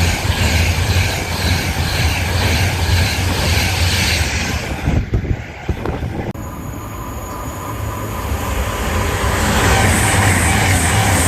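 Electric train running through the station, a loud rush of wheel and traction noise over a low hum. It breaks off abruptly about six seconds in, then a second train's noise builds up, loudest near the end.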